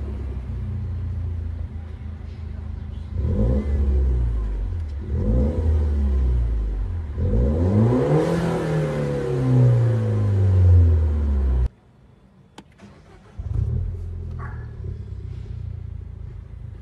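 An engine idling and being revved: two short blips, then a longer rev whose pitch climbs and slowly falls back. The sound cuts off abruptly about two-thirds of the way through, and a quieter idle returns near the end.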